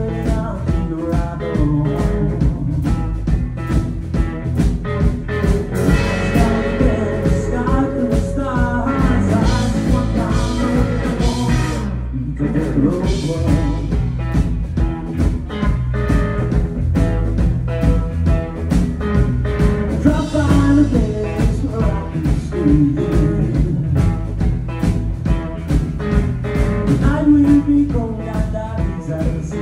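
Live band playing a bluesy rock and roll song: electric guitars over a steady drum beat.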